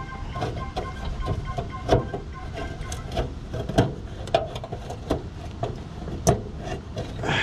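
Irregular small clicks and knocks of hands working wires and pushing a spade connector onto a terminal in an air-conditioner condenser's electrical box, over a low steady rumble.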